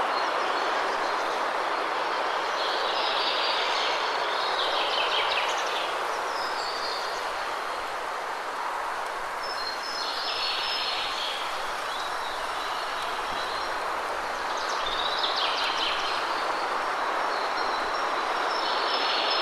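Waterfall rushing steadily, with birds chirping in short bursts every few seconds over it.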